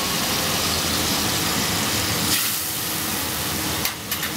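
Diced guanciale frying in its rendered fat in a pan, a steady sizzle, with a few brief clicks near the end.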